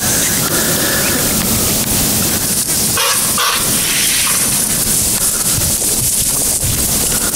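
Steady wind noise buffeting the microphone, with two short hissy sounds about three seconds in.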